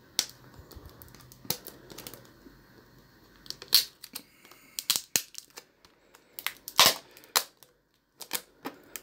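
Cellophane protective wrap being peeled off a new smartphone, crackling in irregular sharp clicks and snaps, the loudest about two thirds in.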